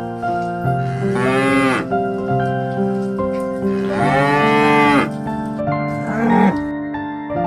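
Water buffalo mooing: two long moos, each rising then falling in pitch, about a second in and about four seconds in, and a short one near the end, over background music.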